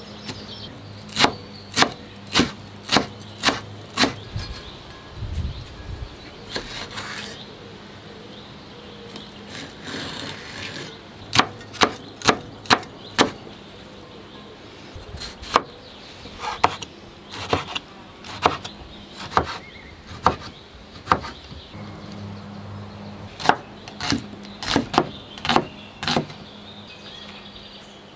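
Knife chopping on a wooden cutting board: runs of sharp knocks, about two a second, with short pauses between the runs.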